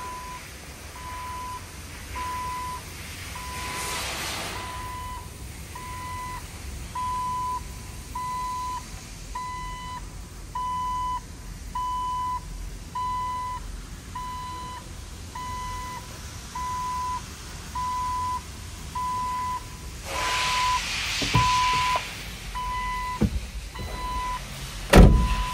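A dashboard warning chime in the 2004 Jeep Wrangler beeps in a steady single tone about once a second while the driver's door stands open, then stops near the end. There are bursts of rustling, and a heavy thump just after the beeping stops is the loudest sound.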